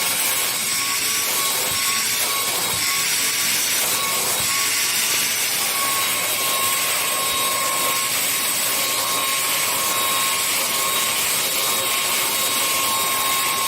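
Lotus 3-gallon wet/dry vacuum running steadily: a high motor whine over rushing air, with a few irregular rattles in the first few seconds.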